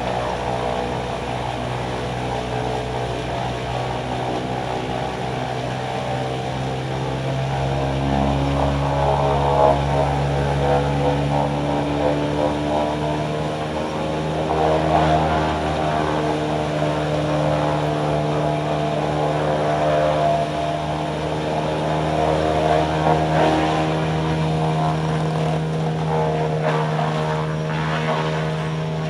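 Vermeer WC2500XL whole-tree wood chipper's large diesel engine running under load with a steady drone. About eight seconds in it gets louder, with rough surges every few seconds.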